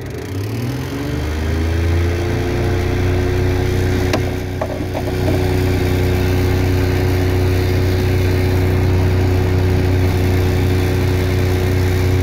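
An electric boat motor, switched on with one coil from its FET controller and in gear driving the outdrive. Its pitch rises over about a second and a half as it spins up, then it runs at a steady speed with a hum. A few faint clicks come about four to five seconds in.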